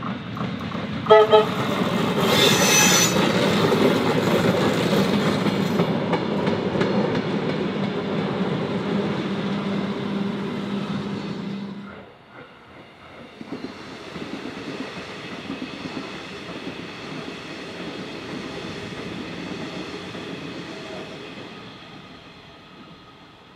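Vintage Tait wooden-bodied electric suburban train: two short horn toots about a second in, then the train running by on the rails with a steady low hum and wheel noise. The sound drops off abruptly near the middle, and quieter train running continues after it.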